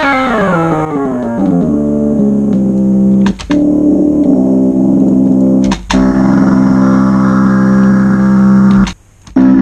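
Synth-like sound made from a processed cat meow sample. It glides down in pitch over the first two seconds, then settles into a steady low held note that cuts out briefly twice and drops out near the end.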